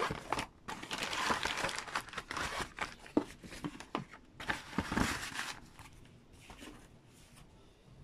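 Clear plastic bag crinkling and rustling as a tape reel wrapped in it is handled. The crinkling is busiest over the first five or so seconds, then dies down to light rustling.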